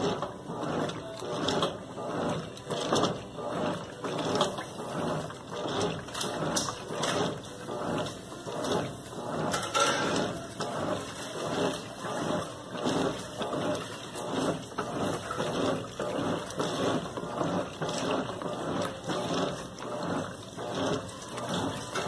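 GE Super Capacity top-load washing machine agitating a heavy load of clothes in soapy water: rhythmic sloshing and swishing strokes, about one a second, with the machine's drive running underneath.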